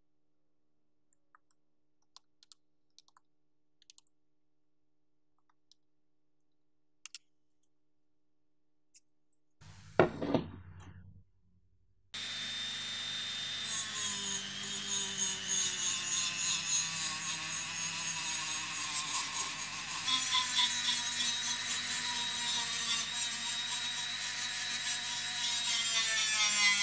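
A few faint scraping ticks, then a short loud burst. From about halfway through, a handheld rotary tool with a felt buffing wheel runs steadily with a high whine, polishing the metal body of a hand-cranked pencil sharpener.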